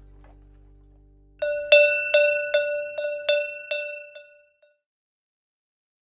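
A cowbell struck about eight times in quick succession, each stroke ringing briefly on the same clanking pitch: the signal to turn the page. Before it, low held music tones fade out.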